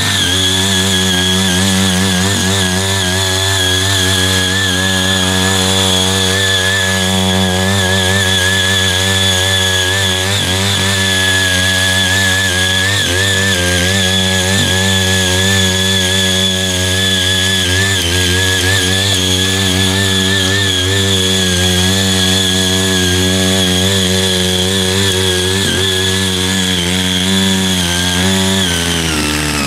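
Small 78.5 cc engine of a CY80 mini power tiller running steadily at working speed while its rotary tines churn through weedy soil. Its pitch wavers slightly.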